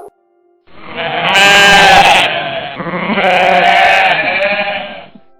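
Sheep bleating: one long, wavering bleat of about four seconds, played as an animal-sound clip for identification.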